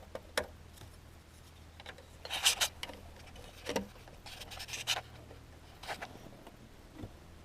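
Plastic dash trim bezel being fitted around a new stereo in a 2002 GMC Sierra's dash: scattered plastic clicks, rubs and scrapes, the busiest stretch about two and a half seconds in, over a steady low hum.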